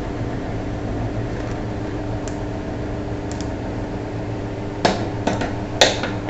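Steel pliers clicking and scraping on the nut of a lead-acid battery terminal as it is worked loose: a few faint ticks, then several sharper metallic clicks in the last second and a half, the loudest near the end. A steady low hum runs underneath.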